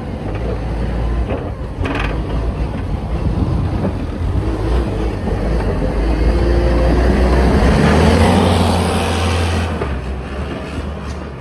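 Sidewalk snowplow's engine and snow-clearing gear approaching and passing close by. The noise builds to a peak about eight seconds in, then fades.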